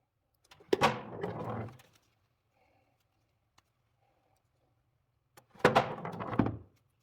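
Two separate bouts of hard objects being knocked and scraped, each about a second long: a sharp knock followed by a rattling scrape.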